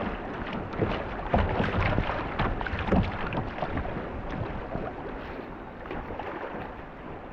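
River water rushing and splashing around a kayak, with many small irregular splashes and knocks, slowly fading.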